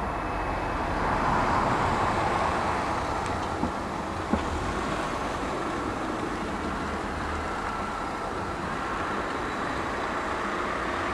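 Distant jet engines of a taxiing Boeing 747 freighter: a steady rushing hum over a low rumble, swelling for a couple of seconds near the start. Two short clicks about a second apart around four seconds in.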